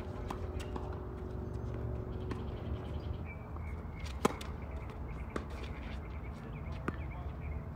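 Tennis racket striking a tennis ball: one loud, sharp hit about four seconds in, with fainter hits and ball bounces from the far court around it.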